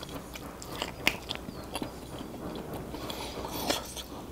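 Close-up mouth sounds of a man eating mutton in a spicy gravy with his hands: chewing with wet clicks and lip smacks. Near the end, a cluster of smacks as he puts his gravy-covered fingers to his mouth.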